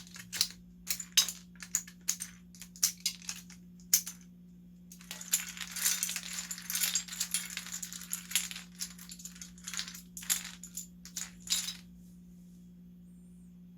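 Plastic Cherry-profile keycaps being pulled off a mechanical keyboard and clattering onto a pile, as sharp separate clicks. About five seconds in, a stretch of dense continuous rattling like a handful of loose keycaps being tipped or shuffled together. A few more clicks follow, then the clattering stops near the end.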